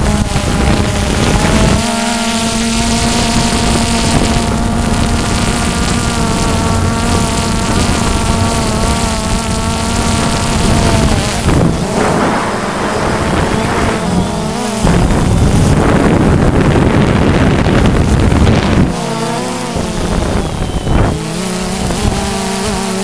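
Quadcopter motors and propellers whining steadily, the pitch drifting slightly up and down as the craft manoeuvres. Through the middle the whine is partly buried under wind rushing over the microphone.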